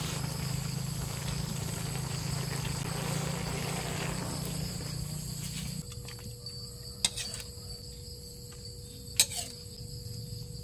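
Crickets and other insects trilling steadily in the background. Over the first half, a wok of curry simmering over a wood fire while a ladle stirs it; after that, a metal spoon clicks twice against a bowl.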